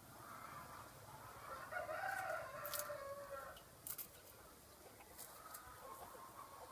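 A rooster crowing once, a single call of about two seconds starting about a second and a half in, with a few sharp clicks around it.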